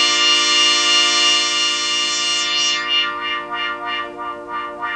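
ARP Omni 1 synthesizer section playing a bright, steady held chord; a little over halfway through, the sound starts to pulse about five times a second.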